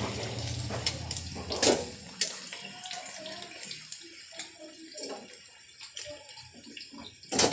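Chunks of pork deep-frying in a stainless steel wok of hot oil, a steady hissing sizzle, with sharp clacks of metal tongs against the pan as the pieces are turned, the loudest a second and a half in and just before the end.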